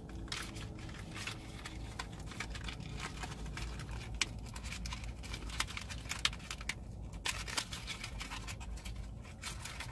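Paper and plastic fast-food packaging being handled: a sauce cup is fitted into its slot in a tenders box, giving scattered clicks, crackles and scratches.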